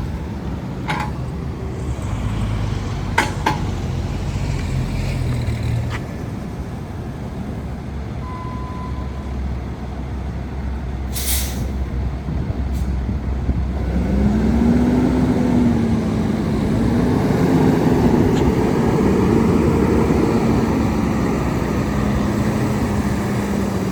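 Freightliner M2 truck's diesel engine running low and steady, with a short sharp air hiss about eleven seconds in. From about fourteen seconds the engine gets louder, its pitch rising and wavering as it revs.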